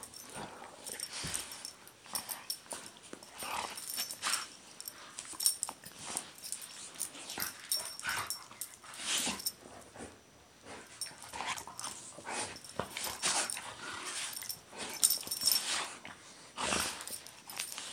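Two golden retrievers playing tug of war over a sock at close range: irregular bursts of noisy breathing and growling as they pull.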